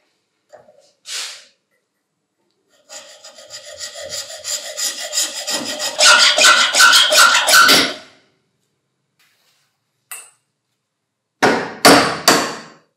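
Hacksaw cutting through the steel armature shaft of a jigsaw motor held in a vise: a run of back-and-forth rasping strokes that grow louder and then stop. Near the end come three sharp knocks, as the cut-off shaft stub is driven out of the fan over a socket.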